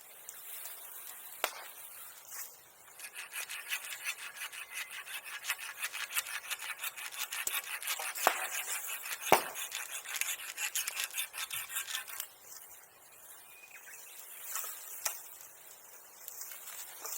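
Hand saw cutting through wood in a run of quick, even rasping strokes that starts about three seconds in and stops about twelve seconds in. A few sharp single cracks stand out before, during and after the sawing.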